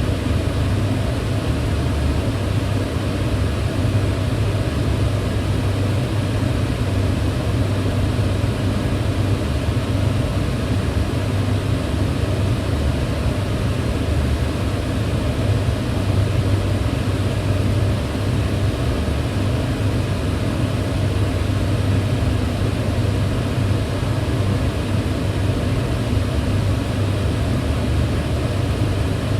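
Kitchen range hood extractor fan running steadily: a constant low hum with even airy noise above it, used as white noise for sleep.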